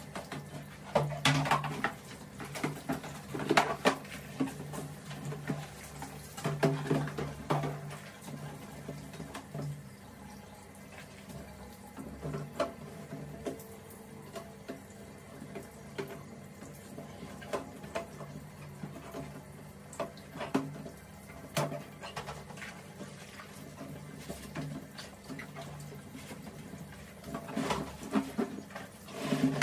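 Plastic dish-drainer rack being hand-washed with soapy foam: irregular knocks and clatters of hard plastic panels and trays being handled, with scrubbing and rubbing between them. A steady low hum runs underneath.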